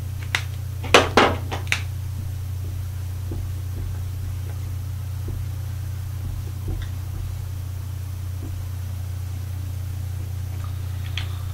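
Dry-erase marker being handled and used on a whiteboard: a few sharp clicks and knocks about a second in, then faint scattered marker strokes, all over a steady low hum.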